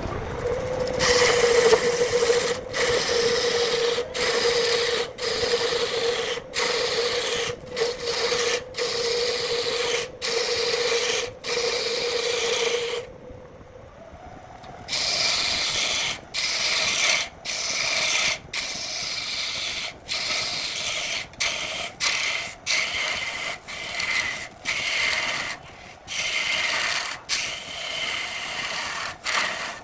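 Wood lathe running with a steady hum while a tool rasps against the spinning wood in short passes, lifting off about once a second. About thirteen seconds in it goes quieter for a couple of seconds, then resumes with a slightly higher hum and more rasping passes.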